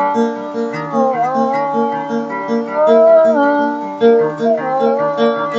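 Guitar played in a steady repeating picked pattern, about three to four notes a second, with a held melody line over it that slides between notes several times.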